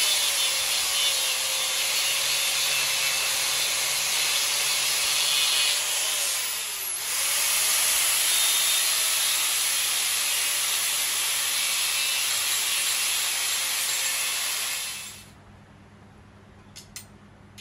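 Electric angle grinder grinding metal, shaping a metal bonnet emblem, with a steady high whine and gritty rasp. About seven seconds in, the motor pitch sags briefly and recovers. The grinder stops about fifteen seconds in, leaving a couple of small clicks.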